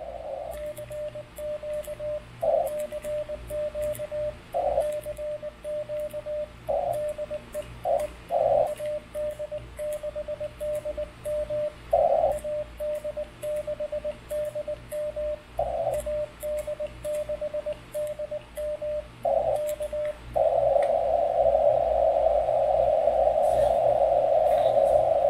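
Morse code sidetone from a radio keyer, a steady mid-pitched beep, sent with a 3D-printed mini iambic paddle: runs of short, even dits broken by a few longer dahs, with faint clicks of the paddle levers. From about twenty seconds in the tone holds on without a break.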